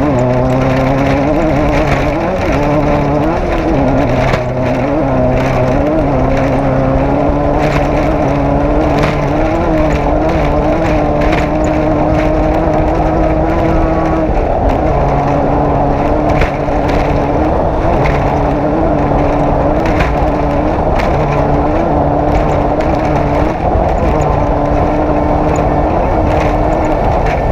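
Off-road race vehicle's engine running steadily under load, its pitch wavering up and down and dropping a little about halfway through, with frequent sharp knocks and rattles.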